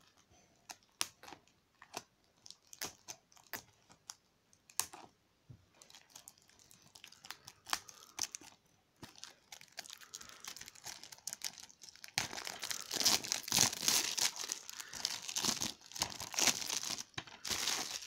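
Cellophane shrink-wrap on a DVD case being picked at and cut, with scattered small clicks and scratches. About twelve seconds in it turns into loud, continuous crinkling and tearing as the plastic film is peeled off and crumpled.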